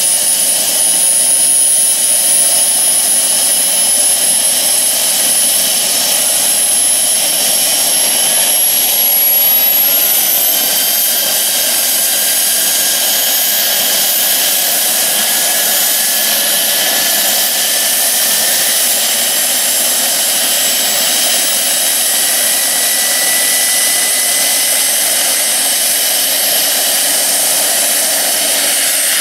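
Small gas turbine of a radio-controlled model helicopter running on the ground as the rotor spools up. It gives a loud, steady jet-like rush with high whines that creep upward in pitch; the highest steps up about ten seconds in.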